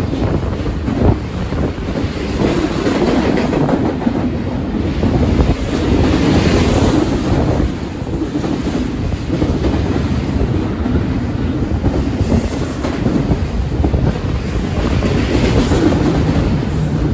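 BNSF double-stack intermodal freight train rolling past close by at speed: a loud, steady rumble of well cars with a dense clickety-clack of wheels over the rails.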